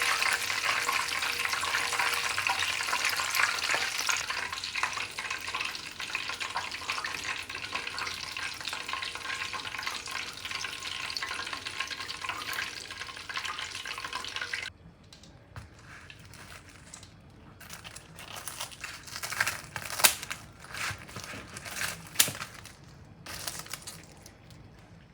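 Chicken pieces deep-frying in hot oil: a dense crackling sizzle that slowly eases, then cuts off abruptly about fifteen seconds in. Quieter scattered clicks and rustling handling noises follow.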